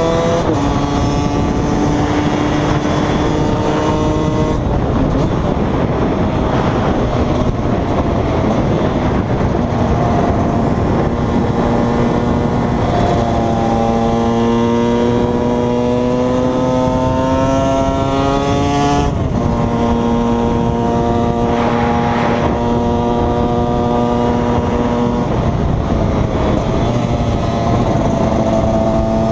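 KTM 125 EXC two-stroke single-cylinder engine under way, its pitch climbing slowly in each gear and dropping back at several gear changes.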